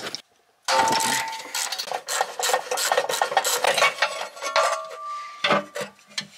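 Smashed stamped sheet-metal oil pan from a Subaru STI scraping and clattering against the surrounding metal as it is wiggled down by hand, with a few brief metallic rings.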